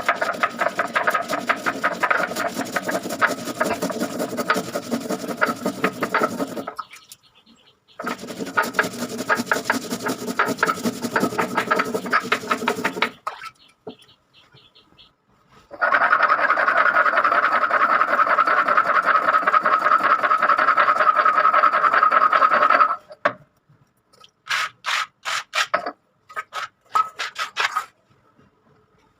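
Ginger, green chillies, cumin, coriander and black peppercorns being ground to a wet spice paste. The grinding goes in three long runs with clean stops between them, then a few short bursts near the end.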